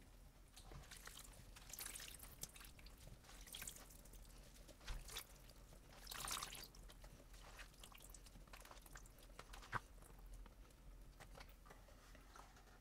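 Faint wet squelching and dripping as handfuls of salted eggplant strips are lifted out of the brown liquid they have released and dropped into a plastic colander to drain. The soft wet sounds come every second or two.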